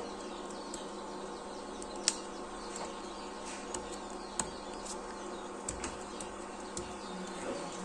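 Steady hum of an Anet A8 3D printer just switched on and idling, with scattered short high chirps over it.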